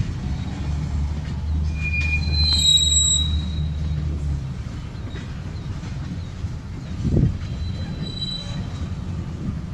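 Freight train of tank cars rolling slowly past during switching: a low rumble of wheels on rail, with a high wheel squeal about two to three seconds in and a single thump about seven seconds in.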